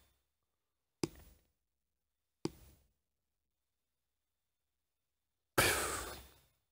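Near silence broken by two short faint ticks, about one and two and a half seconds in, and then a brief breathy rush of noise lasting about half a second, near the end.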